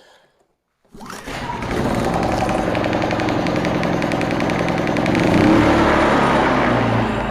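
Generac GP3300i inverter generator's small gasoline engine starting on a pull of the recoil cord about a second in, then running steadily. Its note swells a little about five seconds in and eases slightly near the end.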